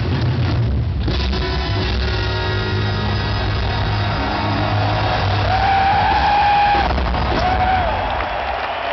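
Large rock drum kit played hard and fast in a live drum solo, heavy on bass drum and toms, recorded from the audience with distorted, overloaded audio. Crowd yells and whoops rise over it in the second half.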